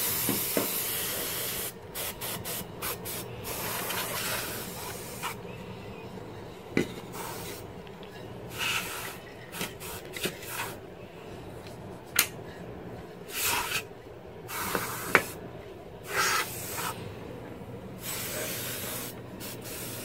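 About a dozen irregular hissing bursts of air blown into an open desktop PC case from a rubber squeeze-bulb blower and an aerosol spray can, cleaning dust off the components. The first burst lasts about two seconds; most of the others are short puffs of under a second.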